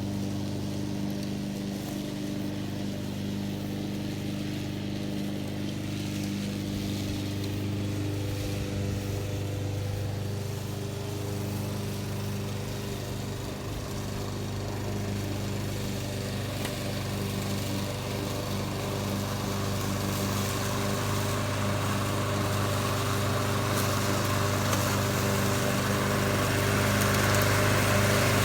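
Honda HRX217 lawn mower's GCV200 single-cylinder engine running steadily, growing louder over the last ten seconds or so.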